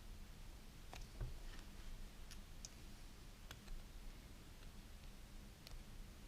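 Faint, scattered small clicks of the small metal and plastic parts of an RC car ball differential being handled and fitted together by hand, about nine light ticks spread irregularly over several seconds.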